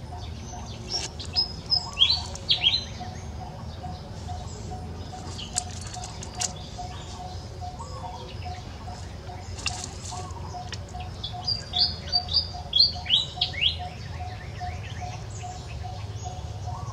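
Small birds chirping in quick, high, falling notes, in two bursts, one near the start and one about two-thirds through. Under them, a faint short note repeats steadily about twice a second over a low background hum.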